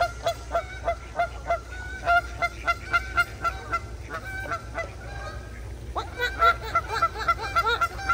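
Ducks quacking: a long run of short, repeated calls about two or three a second, with several birds calling over one another in the last two seconds.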